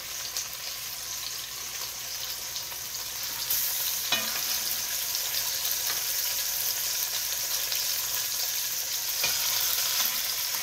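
Beef short ribs sizzling as they sear in hot olive oil in a Dutch oven. The sizzle gets louder about three and a half seconds in, as another rib goes into the pot, with a couple of light clicks near the middle and near the end.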